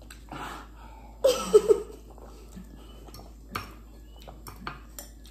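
A short, loud vocal sound from a person, about a second in, without words. Later come a few light clicks of a metal fork against a glass dish of noodles.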